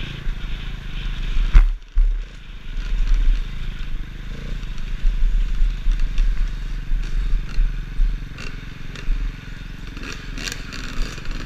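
Enduro motorcycle engine running under changing throttle, heard from on board the bike, with knocks and rattles from riding over a rough dirt trail. About a second and a half in there is a loud knock, and the engine drops away for a moment before picking up again.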